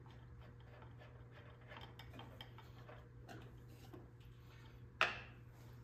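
Faint small metallic clicks and taps of hand-work on a zero-turn mower's hydrostatic transmission while its vent cap is taken off, with one sharp metal clack about five seconds in, over a low steady hum.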